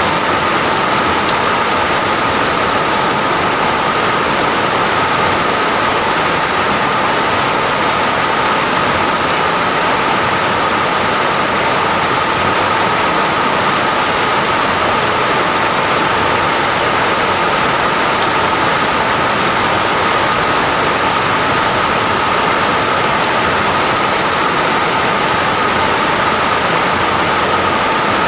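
Steady rain falling, a constant dense hiss of drops that doesn't swell or break.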